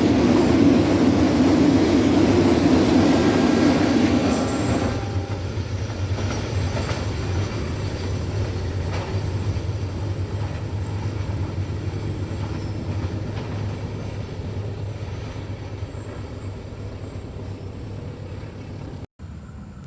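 Passenger train passing close by, loud for the first few seconds, then its rumble fades steadily as it moves away.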